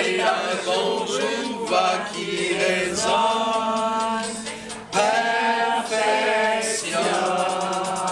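A small mixed group of men and women singing a song together in unison, holding long drawn-out notes.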